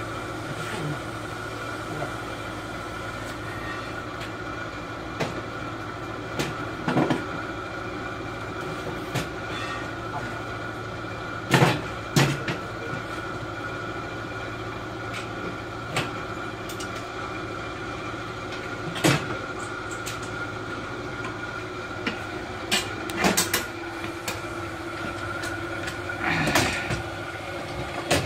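Scattered metallic knocks and clanks as the steel frame, sections and legs of a traction bed are handled and adjusted, the loudest about halfway through and near the end, over a steady hum.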